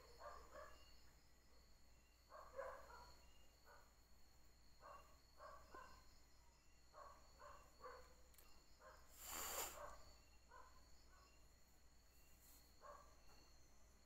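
Faint night insects, likely crickets, keep up a steady high chirring. Short faint calls come in small clusters every second or so, and a brief rustle of noise sounds about nine and a half seconds in.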